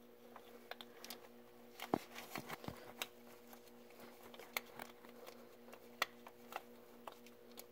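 Faint, scattered light clicks and taps of a plastic electrical connector being fumbled onto an oil pressure sensor, not yet snapping into place. A faint steady hum sits underneath.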